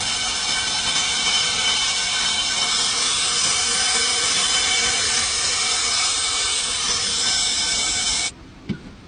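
A loud, steady hiss of pressurised gas escaping from a nozzle, starting abruptly and cutting off sharply after about eight seconds.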